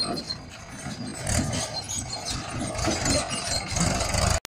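Sparklers burning with an uneven fizzing crackle over a low rumble. The sound cuts off abruptly near the end.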